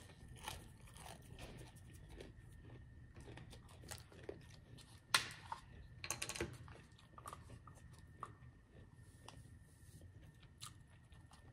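A person chewing food, with soft mouth clicks throughout and two louder clicks about five and six seconds in.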